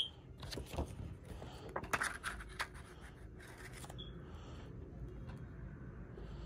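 Plastic DVD case being handled, set down and opened: several sharp clicks and rubbing scrapes in the first three seconds, then faint rustling.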